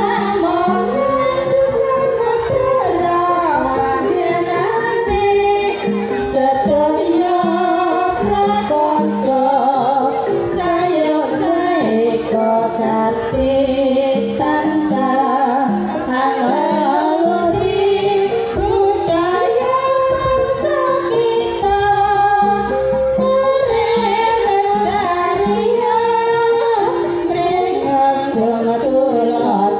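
A group of women singing together into a microphone, with music behind them.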